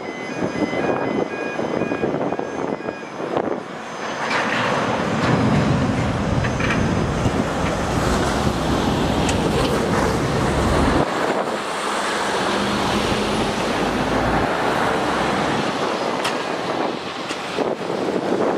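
Heavy lorry traffic passing close by on a road: a low rumble of engine and tyres swells and drops off sharply about eleven seconds in, then a second, weaker pass follows.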